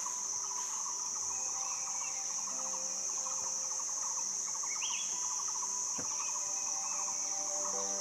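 A chorus of forest insects calling in one steady, high-pitched drone, with faint rapid ticking and a few short chirps underneath. The drone cuts off suddenly at the end.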